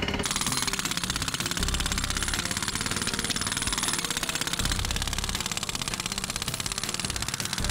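Pneumatic rock drills and a jackhammer hammering into rock: a fast, continuous rattle of blows.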